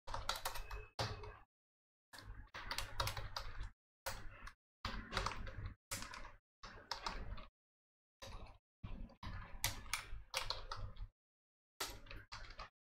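Computer keyboard typing in short runs of keystrokes separated by brief pauses.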